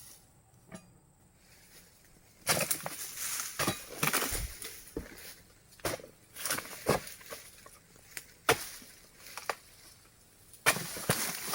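Dry palm fronds and leaf litter rustling, cracking and snapping in irregular sharp knocks, starting about two and a half seconds in after a quiet start and loudest near the end.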